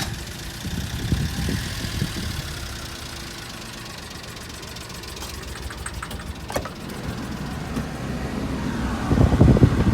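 Honda Vamos engine idling with one cylinder dead, giving a rough, uneven low beat likened to a Harley's lopsided rhythm, with knocking and vibration. It grows louder about nine seconds in.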